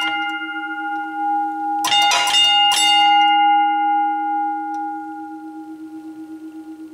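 McKenzie & Holland teardrop level crossing bell, a later aluminium model, ringing from hammer strikes; a quick burst of strikes about two seconds in, then the gong rings on and slowly dies away with a wavering low hum.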